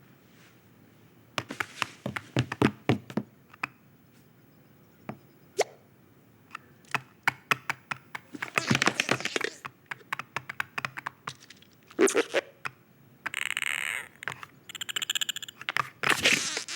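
Animated-film foley effects: a run of small taps, clicks and light knocks, with denser rustling or scraping stretches about halfway through and again near the end.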